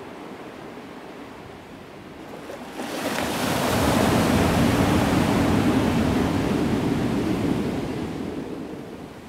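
Ocean surf: softer wind and distant surf at first, then about three seconds in a wave breaks close by and its wash rushes up the sand, slowly fading near the end.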